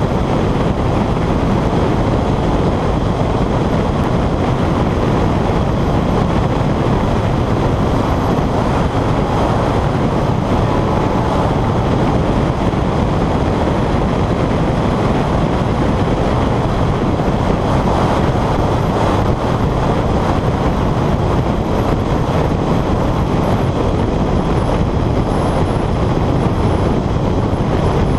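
Honda CR-X being driven at speed on a track lap, heard through a car-mounted camera's microphone: engine, tyre and wind noise blend into one loud, steady rush with no clear engine pitch standing out.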